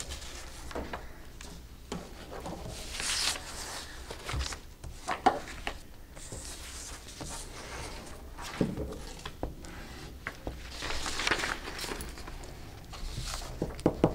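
Sheets of paper rustling and being turned and handled at a table, with scattered light taps and knocks.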